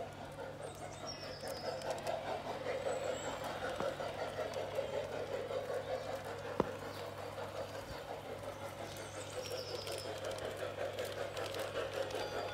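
LGB garden-scale model steam locomotives running along the track, a steady rolling sound that pulses a few times a second, with a few short high chirps now and then and one sharp click about six and a half seconds in.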